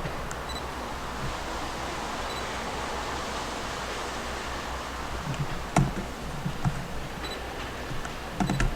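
Steady rushing noise of a Long Island Rail Road M3 electric multiple-unit train moving along the track, with a few sharp clicks late on.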